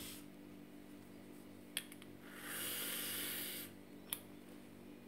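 Aerosol can of whipped cream hissing as it sprays a swirl of topping for about a second and a half, with a short click just before and another just after.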